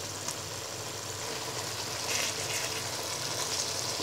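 Hilsa korma sauce sizzling and bubbling in a frying pan with ghee just added: a steady fine crackle.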